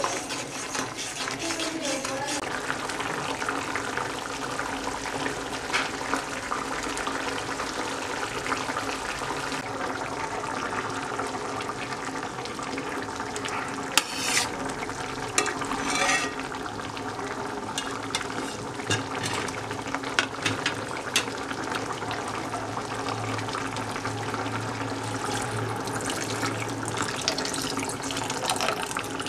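Potato-and-egg curry bubbling and sizzling steadily in a pan, with a spoon stirring through it at the start and two sharp clicks about halfway through. Near the end, coconut milk begins pouring into the curry.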